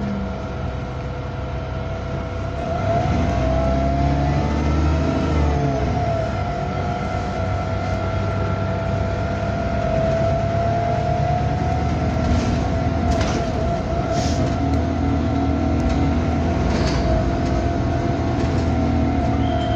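Bus 27244 under way, heard on board: the engine rumbles and a strong whine, the weird noise this bus makes, drifts slowly up and down in pitch. The engine note rises about three seconds in, and a few sharp rattles or clicks come in the second half.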